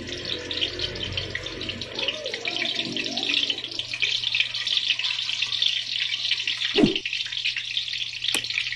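Hot cooking oil sizzling and crackling in a pan as pieces of bitter melon are set into it, with a low steady hum underneath. A single knock comes about seven seconds in.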